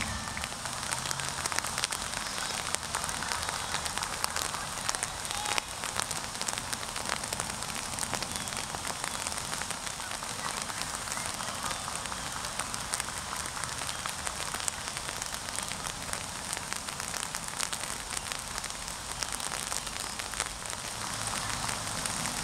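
Steady rain falling: a constant hiss dotted with many small drop ticks.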